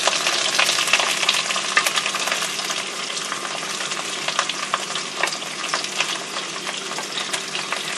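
Diced onions sizzling steadily in hot oil in a non-stick wok as they are scraped in off a plate with a wooden spatula, with scattered clicks and taps of the spatula.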